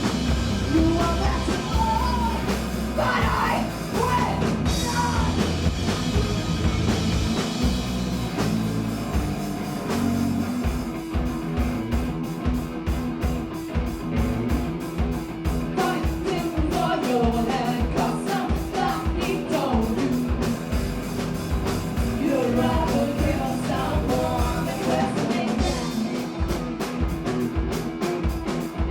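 Punk rock band playing live: loud guitars, bass and drums under a singer's vocals, with a fast, even drum beat driving the song from about a third of the way in.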